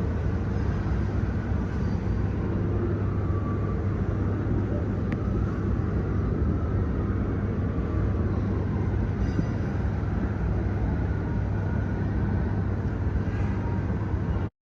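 Steady low engine rumble with a constant low hum, unchanging throughout, then cutting off abruptly near the end.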